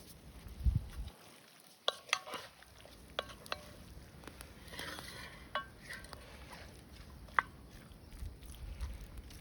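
A utensil stirring beef and vegetables in a glazed cast iron pan: scattered clinks and scrapes against the pan, some with a short metallic ring.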